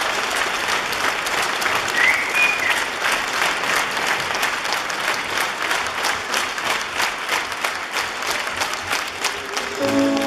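Audience applauding. There is a short high tone about two seconds in, and music starts just before the end.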